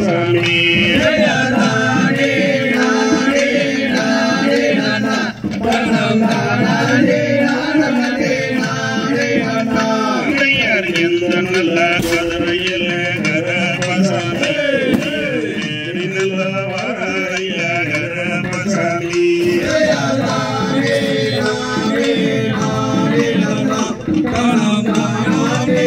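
Tamil folk song for the Valli Kummi dance: steady sung melody with instrumental accompaniment, continuing without a break.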